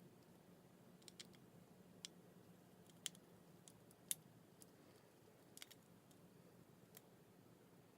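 Scattered small, sharp clicks and taps, such as small tools and phone parts being handled during an iPhone 5s screen repair, over near-silent room tone. The two loudest come about three and four seconds in.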